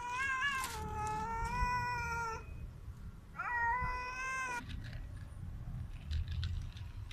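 Hungry street cat meowing: two long meows, the first lasting about two and a half seconds, the second shorter and rising in pitch at its start, about three seconds in.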